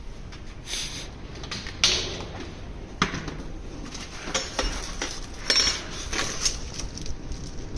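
Hard plastic scooter top box being handled and opened: a series of sharp clacks and knocks of the plastic shell and lid, with small clinks from a bag of metal screws and fittings inside it.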